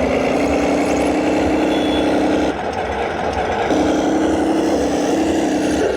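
Engine sound for a toy armoured tank: a loud, steady engine drone with a low hum that drops away for about a second in the middle, then returns.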